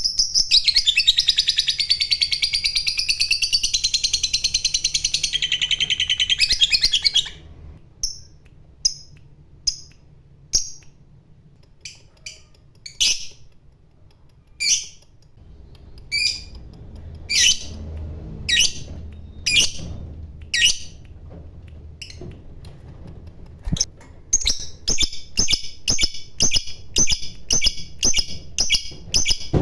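Lovebird's ngekek: a long, very fast high-pitched chattering trill that stops about seven seconds in, followed by single sharp chirps about a second apart, then a quicker run of chirps near the end.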